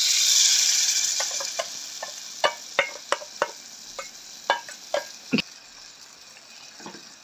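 Coconut milk poured into hot oil in a clay pot, hissing loudly at first and dying away over a couple of seconds. Then about a dozen sharp taps and clicks as a wooden spoon scrapes the metal bowl against the pot.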